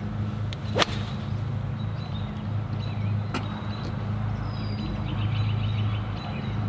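Golf iron striking the ball on a full fairway shot: one sharp, crisp click about a second in, with a fainter click a couple of seconds later, over a steady low hum.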